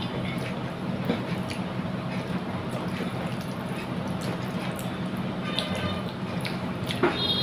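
Wet, squishy eating sounds of rice with dal and fish curry, with scattered small clicks, over a steady low hum.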